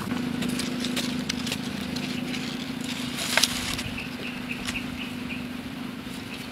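Hands pulling arrowroot rhizomes out of dry, crumbly soil: scattered crackles and snaps of roots and clods breaking, one sharper snap about three and a half seconds in, over a steady low hum.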